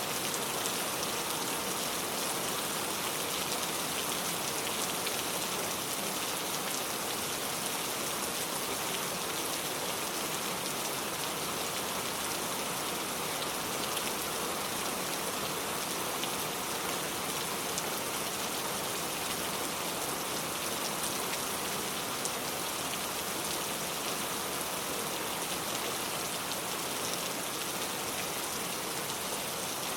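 Steady rain falling, a dense even patter of drops striking surfaces with scattered individual drop ticks.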